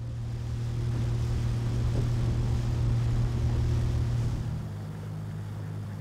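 Small boat's outboard motor running steadily under way, with the hiss of water and wind over it. About four and a half seconds in the engine note changes to a slightly lower pitch.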